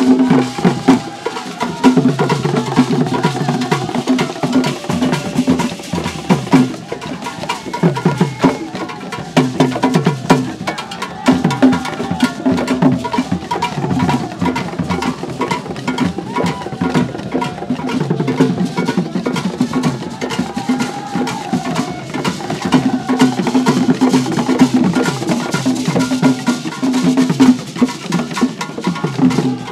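Live drumming on a group of hand drums, a steady, fast dance rhythm of dense strikes that keeps going without a break.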